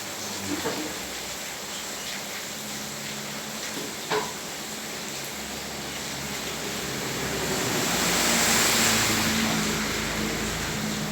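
Steady rain falling on a flooded street, with two short sharp splashes or knocks, one near the start and one about four seconds in. From about six seconds a vehicle draws near, loudest around eight to nine seconds in, then fades.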